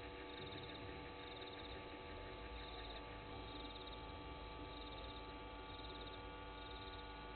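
Faint night-time bush ambience: a short trilled chirp, typical of a cricket, repeating about once a second over a steady hum.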